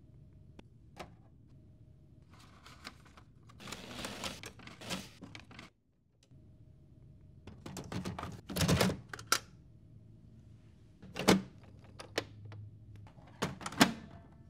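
Hands working inside a Lexmark XM1246 laser printer: a jammed sheet of paper rustles as it is pulled out. Then come a series of sharp plastic clicks and clunks as the green-handled imaging unit is pushed back into place, and two loud clunks near the end as the printer's front door is shut.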